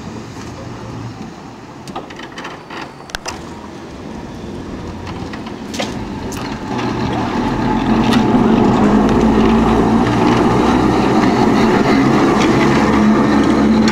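Vintage electric tram with a trailer running on street rails: scattered sharp clicks in the first half, then the rumble of its wheels on the track grows and stays loud from about halfway as the car passes close by.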